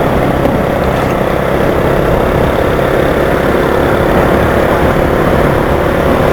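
Motorcycle engine running steadily while riding, mixed with wind and road noise on the helmet camera's microphone.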